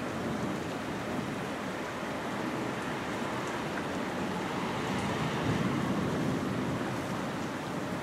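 Steady rain during a thunderstorm, with a low rumble swelling and fading about five and a half seconds in.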